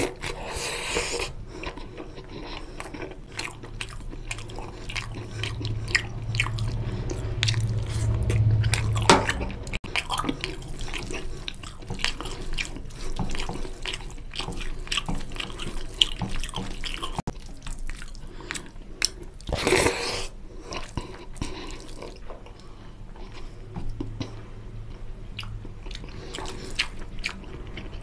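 Close-miked wet chewing and lip-smacking of oily mutton curry and rice, with the squelch of fingers mixing the gravy-soaked rice. There are many small wet clicks throughout, and two louder wet bursts, about a second in and around twenty seconds in.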